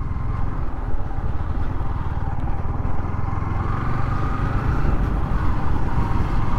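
Motorcycle riding at low speed, its engine and the ride making a steady low rumble.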